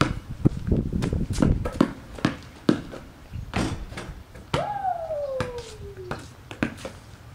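Basketball dribbled on a concrete driveway, about two bounces a second, then a shot at the hoop. About halfway through, a long cry that falls steadily in pitch.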